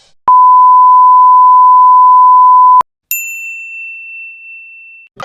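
Censor bleep: a loud, steady single-pitch beep held for about two and a half seconds that cuts off abruptly. It is followed by one high, bell-like ding that rings on for about two seconds.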